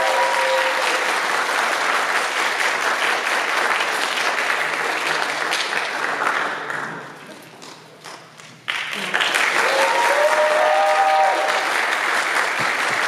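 Audience applauding, with a few high whoops near the start and again about ten seconds in. The clapping fades away a little after six seconds, then starts again suddenly just before nine seconds.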